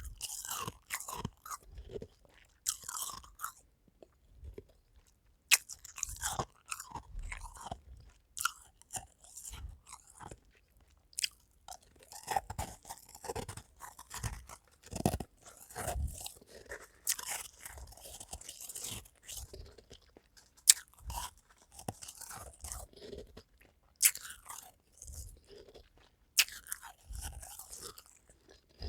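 A person biting and chewing frosty freezer ice, with irregular crunching and a few sharp cracks as pieces break.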